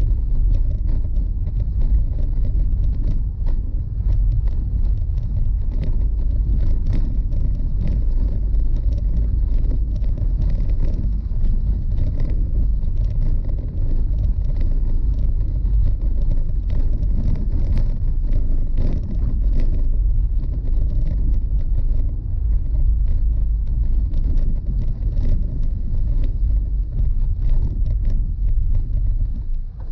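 Vehicle driving over a rough, stone-paved dirt road, heard from inside the cabin: a steady, loud low rumble of tyres and road noise with frequent small knocks and rattles.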